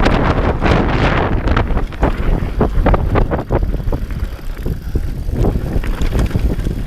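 Enduro motorcycle ridden off-road: heavy wind buffeting on the microphone over the running engine, with irregular knocks and rattles from rough ground.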